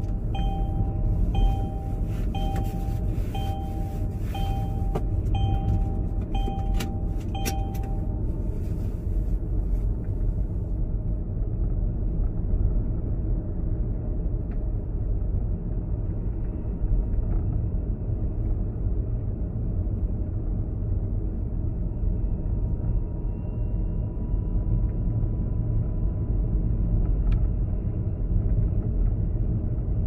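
Low, steady rumble of a car driving, heard from inside. For the first eight seconds or so a two-tone warning chime beeps about twice a second with a few sharp clicks, then stops.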